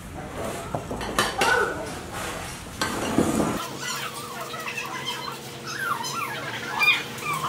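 Ceramic bowls and metal utensils clinking, then a ladle knocking in a large pot of soup. From about halfway, chickens cluck in the background.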